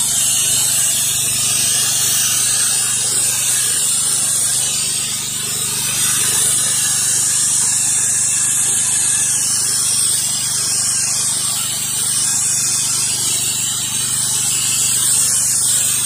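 Pressure-washer wand jet blasting grime off a concrete driveway: a steady hiss of spray, with the machine's steady low hum underneath.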